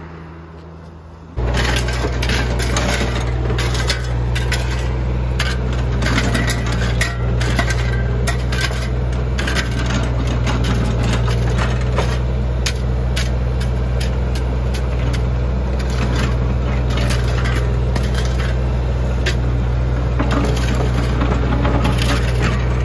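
Steel shovels scraping and scooping gravel and soil in quick, irregular strokes, over the steady low running of a Komatsu PC38UU mini excavator's diesel engine. Both start abruptly about a second in.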